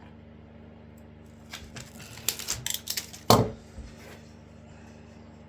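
Workbench handling: a quick run of clicks and rattles as pieces of wood and a tool are picked up and set down, with one sharp knock about three seconds in, over a steady low hum.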